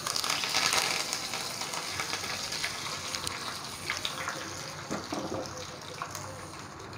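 Curry leaves dropped into a small pan of hot oil for a tadka, sizzling: a loud hiss the instant they go in that eases over the next few seconds into a steadier sizzle with scattered small pops.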